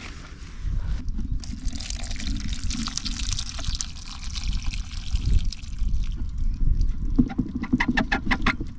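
Water pouring and trickling out of a container of freshly netted whitebait as it is drained, for several seconds, over a steady low rumble.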